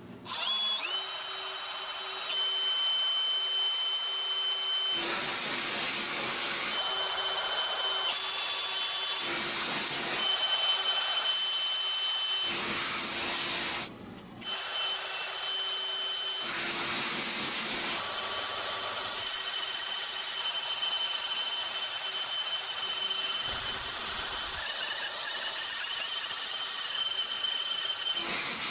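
Power drill boring holes into the solid steel of a forklift fork with a twist bit. The motor whines steadily under load with a grinding cutting noise; the whine shifts in pitch at several abrupt breaks, and there is a brief pause about 14 seconds in.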